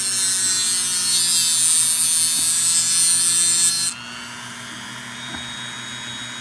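Dremel rotary tool with a cutting stone running at speed and grinding down a dogface puffer's overgrown dental plates, a loud high-pitched grinding hiss. The grinding stops about four seconds in, leaving a quieter steady hum.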